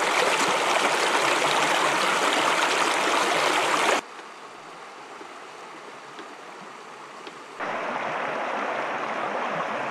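Shallow stream running fast over rocks and pebbles, a loud, close rushing. About four seconds in it drops suddenly to a quieter, more distant flow, and comes back loud near the end.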